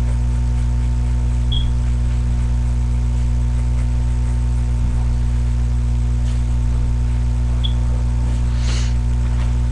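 Loud, steady low hum with a fainter higher tone above it, picked up by a webcam microphone. Two short high chirps sound over it, one about a second and a half in and one at about eight seconds.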